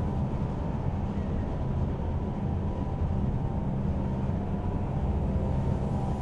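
Steady low rumble of a bus in motion, heard from inside the bus.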